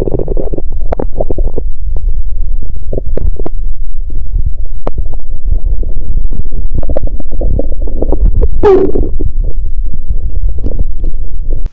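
A woman's stomach and intestines gurgling and rumbling with period-related abdominal pain: a steady deep rumble under many short, irregular gurgles and pops, with one longer gurgle that slides in pitch about two-thirds of the way through.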